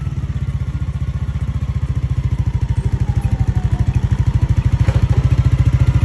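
Yamaha NMAX v2 scooter's single-cylinder four-stroke engine idling through an aftermarket exhaust pipe: a steady, rapid, even thumping that grows slightly louder toward the end.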